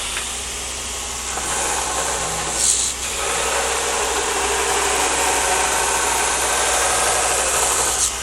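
Continuous abrasive rubbing of a knife blade, starting about a second in, dipping briefly around three seconds and stopping abruptly near the end, over a steady low hum.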